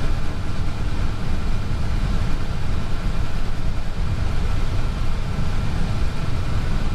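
Airbus A320 cockpit noise while taxiing: a steady low rumble with a faint, even whine above it.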